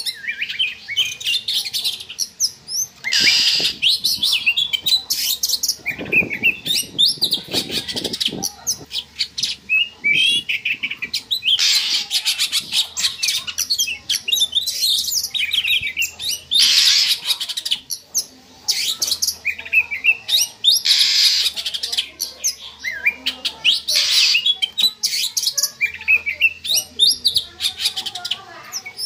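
Oriental magpie-robin (kacer) in breeding-season song: a fast, unbroken run of high chirps, whistles and trills. Every few seconds it breaks into a short harsh, rasping call.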